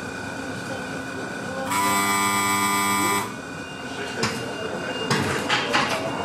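Inside a Tatra T4D tram at a stop: a steady faint electrical whine, then a loud buzzing door-warning signal lasting about a second and a half. Several clunks and rattles follow as the doors close.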